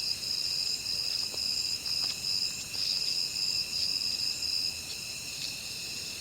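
Crickets chirping in a steady chorus: a high pulsing trill with steadier, lower insect tones beneath it, and a few faint clicks.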